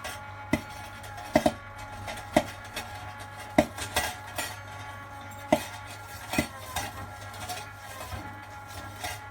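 Electric popcorn machine running with a steady hum while kernels pop one at a time, about a dozen sharp irregular pops.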